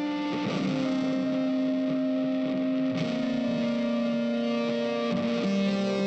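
Background music of held guitar chords with an effects-laden, distorted sound, moving to a new chord three times.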